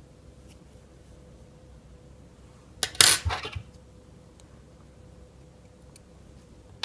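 A brief clatter of small hard objects being handled, about three seconds in. Otherwise quiet room tone with a faint steady hum.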